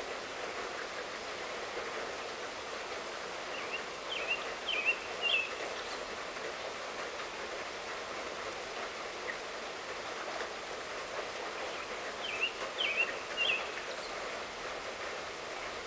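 Light rain falling steadily. A bird calls over it twice, each time three short chirps in quick succession, about four seconds in and again about twelve seconds in.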